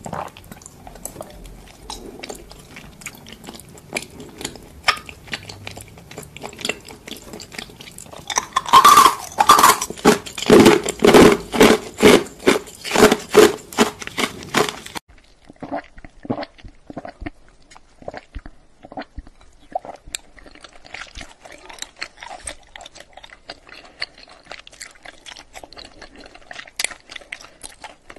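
Close-miked eating sounds of bubble milk tea: tapioca pearls being chewed, with soft clicks of a straw and spoon against a glass bowl. A loud run of rhythmic chewing, about two a second, fills the middle, after which the sounds turn quieter and sparser.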